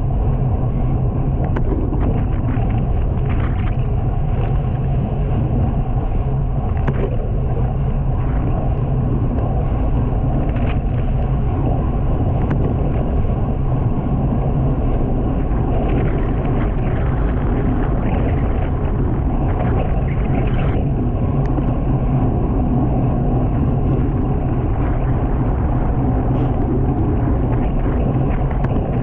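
Steady wind rumble across a camera microphone on a moving road bicycle, with a few faint clicks.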